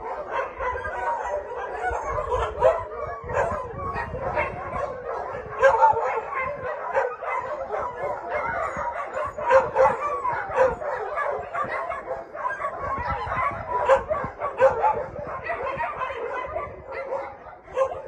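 A large pack of shelter dogs barking all at once, many voices overlapping in a continuous chorus that never lets up, with louder barks standing out every few seconds.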